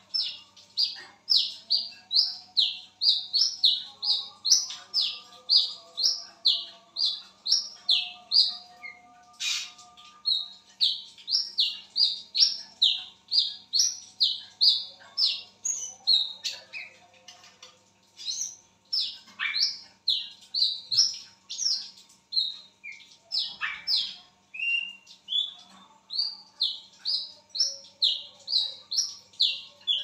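Brown-throated sunbird (wiceh, kolibri kelapa) calling: a fast, almost unbroken run of short, high chirps, each sliding down in pitch, about two to three a second, with a few brief pauses.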